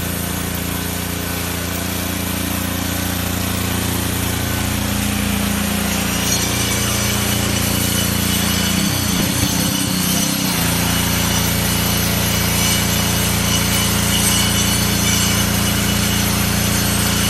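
Gas-powered cut-off saw running steadily and grinding through concrete, with a high hiss of the cut that grows stronger about six seconds in. The engine note briefly drops and wavers around nine to ten seconds in, then steadies again.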